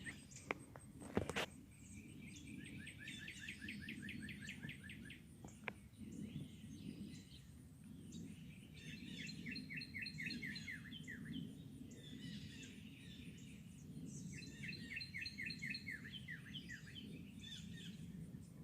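Wild songbirds singing outdoors: repeated bursts of rapid, downward-sliding chirps in quick series, coming in several bouts. A few sharp knocks sound in the first seconds, over a steady low background rumble.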